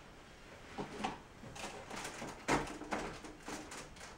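Plastic Lego bricks being pulled apart and dropped onto loose piles: a string of light clicks and clatters, the loudest about two and a half seconds in.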